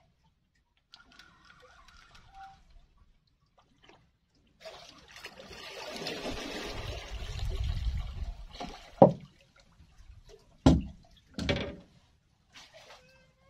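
Water splashing and trickling for several seconds as a hooked fish is reeled up and lifted out of the water. Near the end come three sharp knocks.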